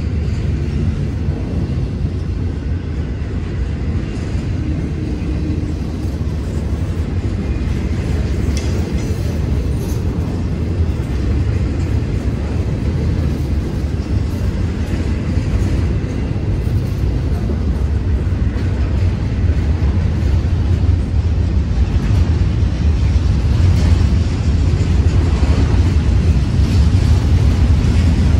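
Double-stack intermodal freight train cars rolling past at a grade crossing with a steady low rumble, growing gradually louder toward the end.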